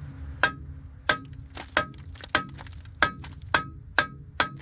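Repeated sharp metallic clinks, about eight in a steady rhythm, many with a brief ringing tone after each strike: metal striking metal.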